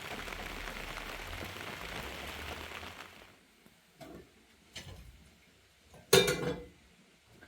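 A steady rushing hiss that stops about three seconds in, followed by a few clinks and knocks of dishes, the loudest about six seconds in.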